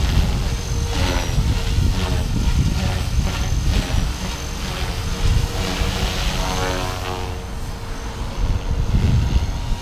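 Blade 330S electric RC helicopter flying overhead: a thin, steady high whine from its motor and a rotor buzz, both dipping briefly in pitch as it manoeuvres, with a sweep of gliding tones a little past the middle. A heavy low rumble lies under it throughout.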